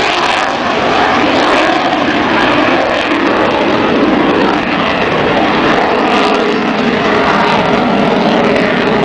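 A military jet's engines making a loud, steady jet noise as the aircraft flies overhead in its display.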